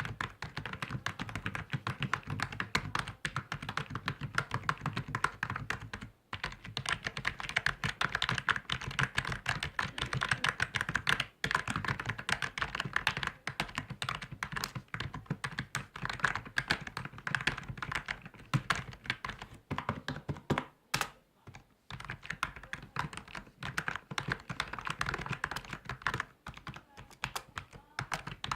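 Fast, continuous typing on a computer keyboard: a dense stream of key clicks, broken by a few short pauses, the longest a little after two-thirds of the way through.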